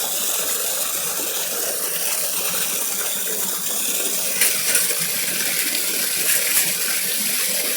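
Waterfall splashing steadily into a pool, a continuous rushing of water, with a few short sharp sounds over it in the second half.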